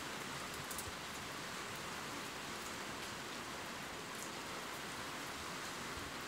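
Steady rain falling, an even hiss with a few faint drops ticking now and then.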